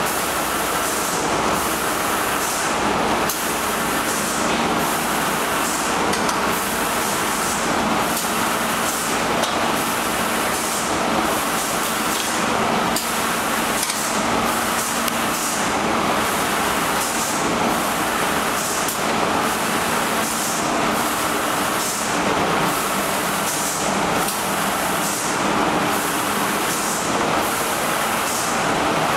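Automatic UV-PU spray-coating line for wooden doors running: a steady, loud hiss over a faint hum, with a slight pulsing in the hiss about once a second.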